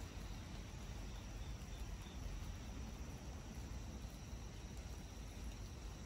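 Rain falling through tree foliage: a steady, even hiss with a low rumble underneath.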